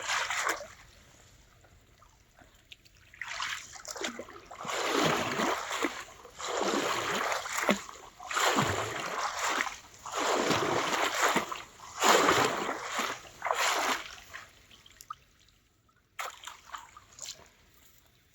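Potatoes being washed in a basket swished through water: about six splashing, sloshing swishes of a second or so each, with a quiet spell before and a few faint sounds after.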